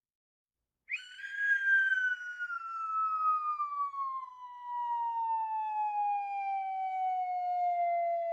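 A sound effect: one long whistling tone that starts about a second in and glides slowly and steadily down in pitch, like a cartoon falling whistle.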